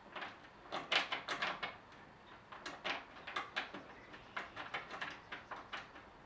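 M6 bolts with conical metal washers being turned in by hand against an HDPE plastic skid plate: a string of light, irregular clicks and scrapes that come in clusters.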